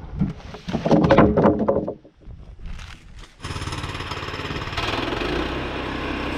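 A loud, irregular clatter of handling noise. About three and a half seconds in, the sawmill's small gasoline engine starts and runs with an even pulse, then speeds up about a second later.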